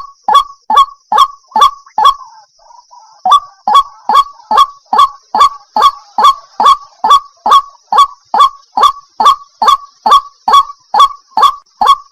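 Waterhen calling: a long run of loud, harsh, evenly repeated calls, about two and a half a second, each a short falling note, with a break of about a second near two seconds in.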